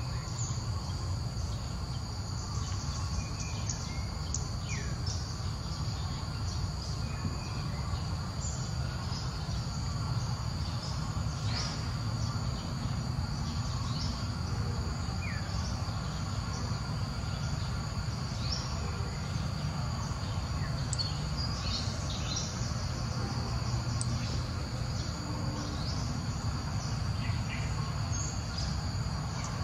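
Steady outdoor insect chorus, a constant high buzz, with a few short chirps scattered through and a low rumble underneath.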